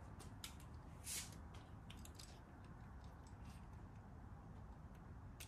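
Near silence with a low room hum and a scatter of faint clicks and rustles from small die-cast toy cars and their packaging being handled, with a soft rustle about a second in.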